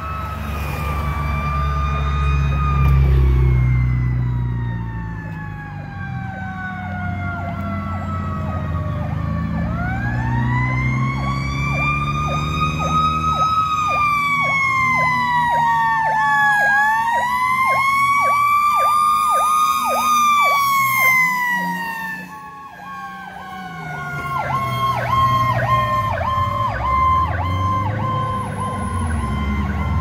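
Emergency sirens on responding fire apparatus. One siren winds slowly down, climbs, dips and climbs again, then falls away slowly. A second siren cycles rapidly up and down beneath it, over a low vehicle rumble.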